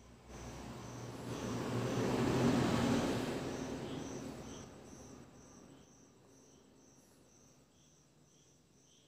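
A passing vehicle swells up and fades away over about five seconds, loudest a couple of seconds in. Underneath, insects chirp steadily, about two chirps a second.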